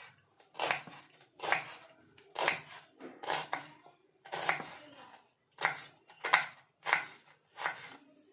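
Kitchen knife slicing through a red onion and striking a bamboo cutting board, in steady strokes about once a second.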